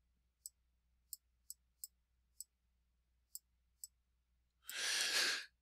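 Pen tip tapping faintly on a tablet screen while handwriting, about seven light, irregular ticks. A short breath is heard near the end.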